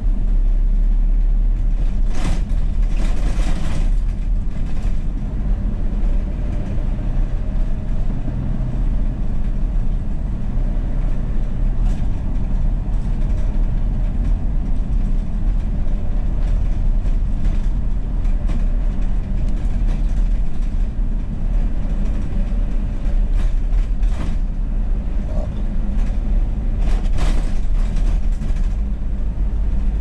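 Steady low road and engine rumble heard inside a moving car's cabin, with a few brief louder noises, two to three seconds in and again near the end.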